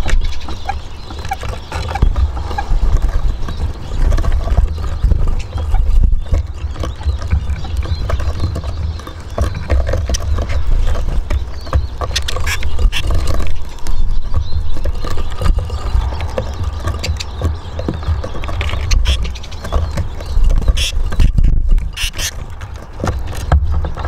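Eurasian siskins pecking and hopping on a wooden bird table: irregular small taps and clicks, over a heavy low wind rumble on the microphone.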